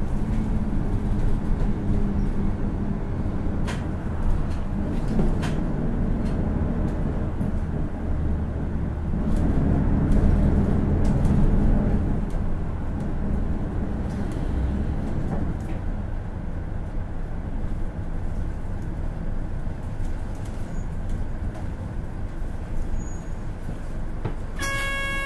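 Hino Blue Ribbon City city bus's diesel engine and drivetrain running while the bus drives, pulling harder for a few seconds around the middle and then easing off. A short electronic chime sounds near the end.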